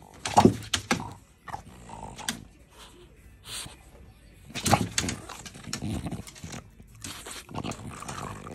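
French bulldog making short, loud vocal noises in bursts while playing with a teasing hand, loudest about half a second in and again near five seconds in.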